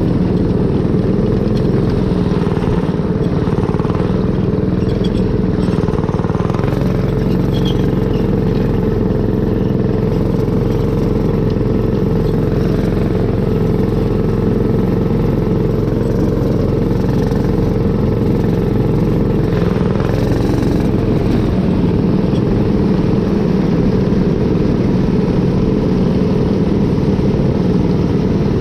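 A dirt kart's Predator 212 single-cylinder four-stroke engine running steadily under throttle at speed, heard from on board. It has its governor disabled and an aftermarket exhaust.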